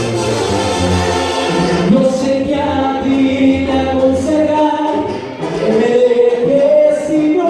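A man singing a Spanish-language song in held, gliding notes over a backing track with a steady bass, played loud through a DJ's PA sound system.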